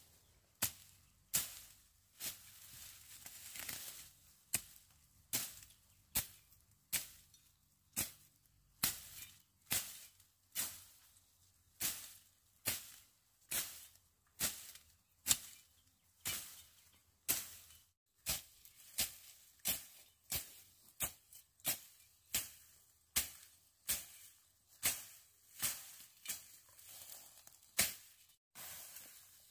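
A hand tool striking again and again in a steady work rhythm, a little more than one sharp stroke a second, each stroke short and quickly fading.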